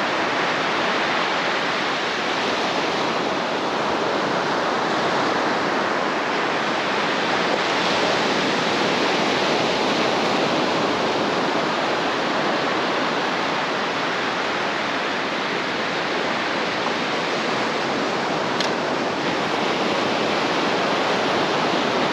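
Sea surf washing onto a beach: a steady, unbroken rush of breaking waves.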